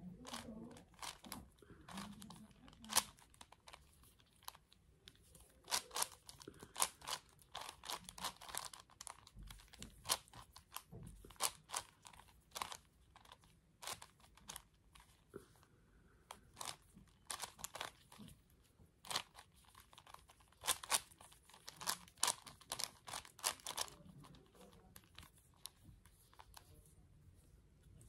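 Plastic 5x5x5 Rubik's cube being turned by hand: irregular runs of sharp clicks and clacks as its layers are twisted, thinning out near the end.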